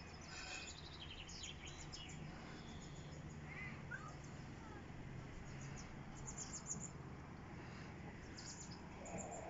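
Faint birdsong: small clusters of high chirps a few times, near the start, about six seconds in and near the end, plus a short whistled note about four seconds in, over a low steady hum.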